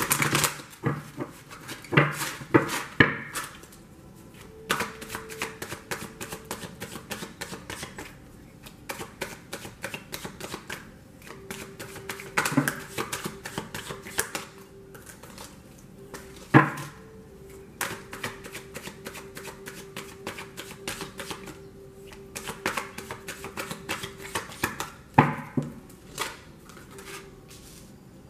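A deck of tarot cards being shuffled by hand: a long run of quick papery clicks, with several louder taps as the deck is knocked or cut against the table.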